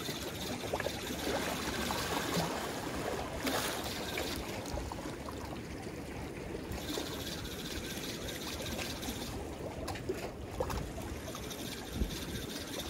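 Seawater sloshing and lapping against breakwater rocks, a steady rushing wash with a few small splashes.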